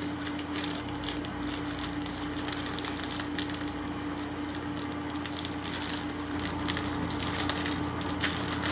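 Packaging wrapper rustling in the hands as it is picked at to find the end and open it, with many small irregular crackles, over a steady low hum.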